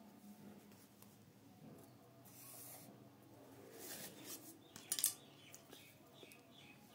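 A plastic protractor being handled and slid across notebook paper, with rubbing and brushing sounds and a cluster of sharp clicks about five seconds in.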